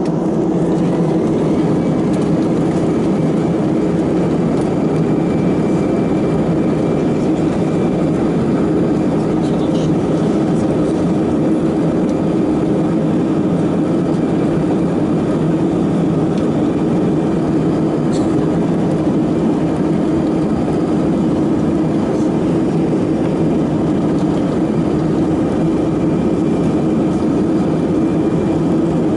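Cabin noise of an Airbus A319-111 on its takeoff roll, its CFM56 engines at takeoff thrust, heard from a seat over the wing: a loud, steady roar with a steady hum through it.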